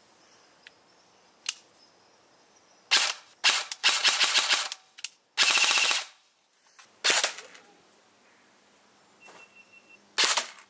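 Electric airsoft rifle (a front-wired M16-style AEG) firing sharp single shots spaced a second or more apart, with a short rapid string of shots around the middle, as it is fired through a chronograph.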